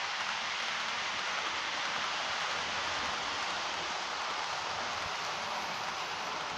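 A model railway train running along the layout track, heard as a steady, even hiss with no distinct clicks or changes.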